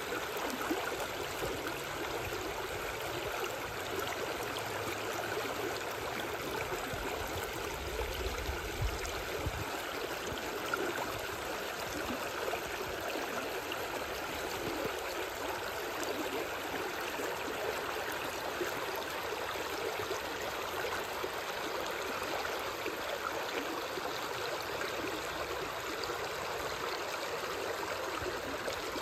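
Shallow river water flowing steadily over a low weir of stacked river stones that sits just below the surface, rippling and rushing over the rocks.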